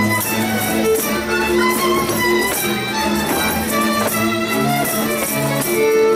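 Live Hungarian folk dance music from a small string band, with a violin playing the dance tune.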